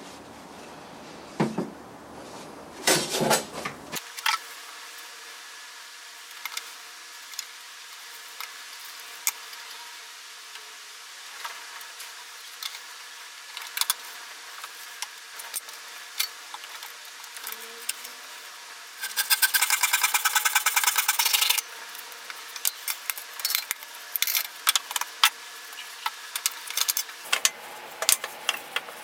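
Hand woodworking on spruce: scattered light clicks and knocks of wood pieces and tools being handled, with a run of fast rubbing or sawing strokes lasting about two and a half seconds, about two-thirds of the way through.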